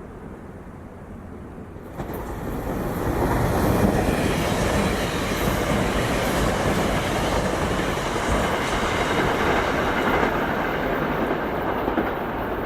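A SEPTA Regional Rail electric train passing. Its noise rises suddenly about two seconds in and stays loud and steady, easing a little near the end.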